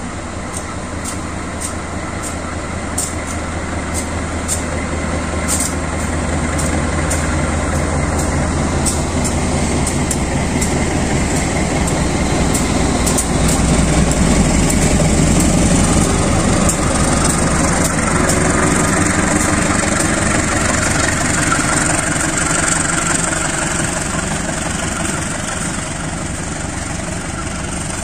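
GE CC203 diesel-electric locomotive hauling a passenger train out of a station: its diesel engine runs under power, growing louder until the locomotive passes close by about halfway through, then gives way to the coaches rolling past.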